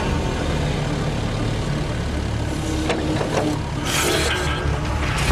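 Excavator engine running steadily as the bucket tips out its heavy load, with a short burst of noise about four seconds in as the load falls from the bucket.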